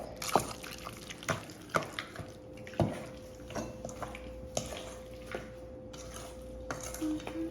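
Raw chicken pieces being stirred by hand in a thick, wet spice marinade in a bowl: irregular wet squelches and clicks, a few a second at first and sparser toward the end.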